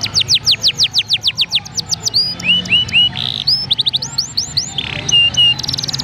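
Domestic canary singing a continuous, loud song in changing tours: runs of quick down-slurred whistled notes about seven a second, switching between high and lower phrases, broken by fast rattling trills and a couple of short buzzy notes.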